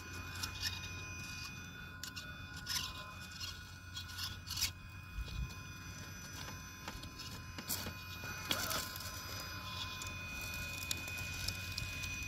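Brushless radio-controlled rock crawler (1.9 Wraith) clambering over loose slabs of rock: tyres and chassis scraping and knocking on stone, with a few sharper knocks, over a faint steady high whine.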